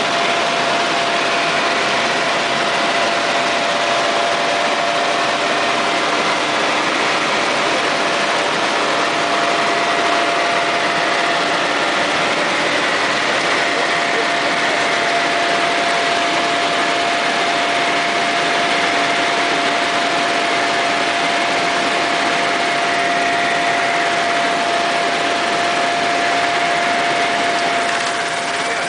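Sikorsky S-61N helicopter heard from inside the cockpit in flight: the steady noise of its twin turboshaft engines and main rotor, with a constant whine running through it.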